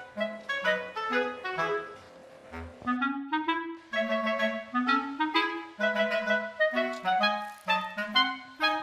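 Background music: a light tune in short clarinet-like woodwind notes over a bass line.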